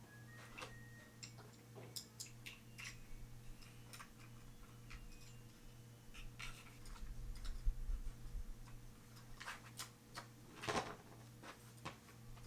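Irregular small clicks and taps of a Magpul polymer pistol grip being handled and fitted onto an AR-15 lower receiver, one louder click near the end, over a faint steady hum.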